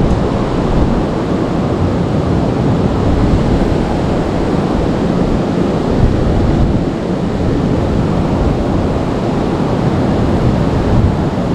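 Steady rush of flowing river water mixed with wind buffeting the camera microphone, heaviest in the low range.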